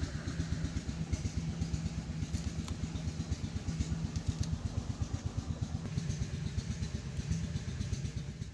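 An engine idling steadily in the background, a low, rapidly pulsing rumble.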